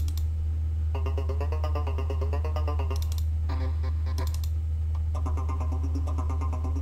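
Nexus synth 'Stutter Voice' presets being auditioned: pitched, vocal-like tones chopped into a fast stutter, in several bursts, the last starting about five seconds in, over a steady low bass drone.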